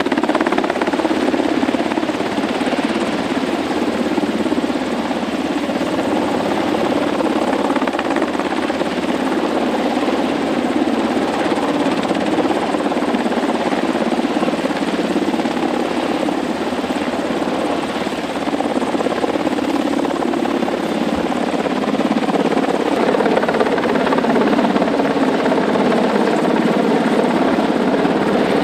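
UH-60 Black Hawk helicopter hovering overhead, its rotor and twin turbine engines running steadily.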